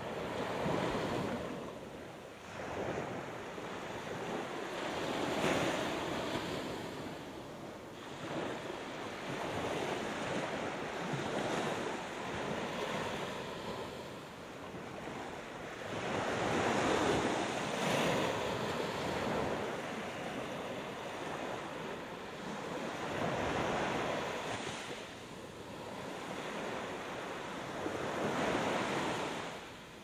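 Gulf of Mexico surf breaking on a sandy beach, a steady wash of waves that swells and fades every five or six seconds.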